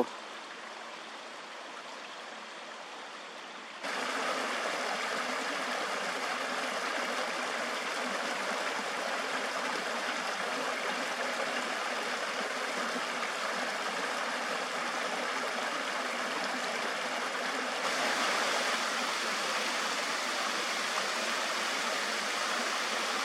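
A creek running over small waterfalls: a steady rush of flowing water, which gets noticeably louder about four seconds in.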